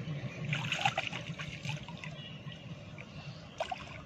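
Water sloshing and trickling as hands grope through mud and shallow water while fishing by hand, with brief crackly splashes about half a second in and again near the end, over a low steady hum.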